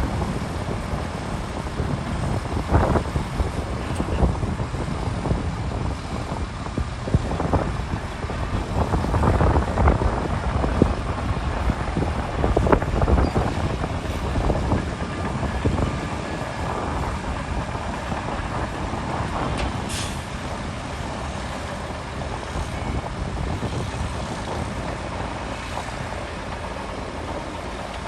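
Heavy diesel earthmoving machinery working under load, with occasional knocks. The engine noise is louder through the first half and eases off later.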